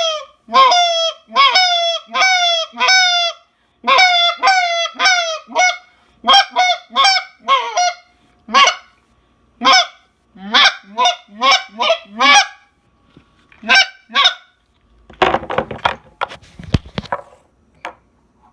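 Tim Grounds Overhauler short-reed goose call blown in a string of loud honks, each note breaking sharply in pitch. The notes turn into shorter, quicker clucks partway through. Near the end come about two seconds of scratchy clicking.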